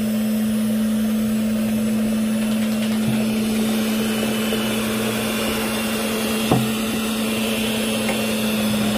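Electric stand mixer's motor running steadily, spinning a perforated beer can as a homemade cotton-candy spinner, with a constant low hum and one light knock about six and a half seconds in. The mixer is a 220 V machine run on 110 V, short of its full power, as its owner says.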